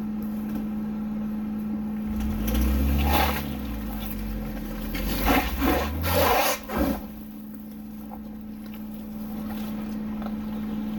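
An off-road vehicle's engine revs for about two seconds, then a few loud scrapes follow as the underbody drags over rock.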